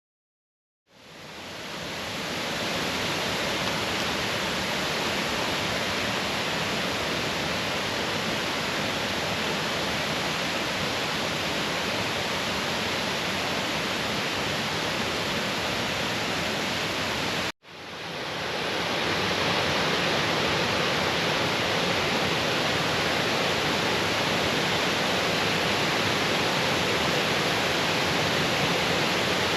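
Waterfall: a steady, even rush of falling water. It fades in about a second in, cuts out for an instant a little past halfway, and fades back in.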